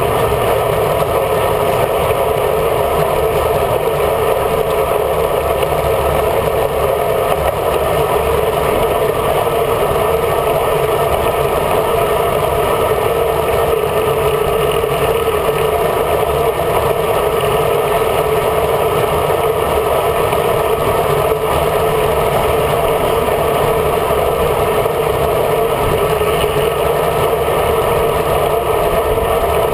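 Steady rush of wind and road noise on a bicycle-mounted camera at riding speed, with a fluttering low rumble from air buffeting the camera.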